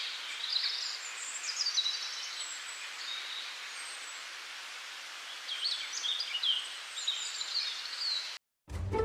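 Several songbirds chirping and singing over a steady background hiss. It cuts off abruptly near the end, and instrumental music begins.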